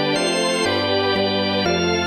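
Background music of held chords that change about every half second.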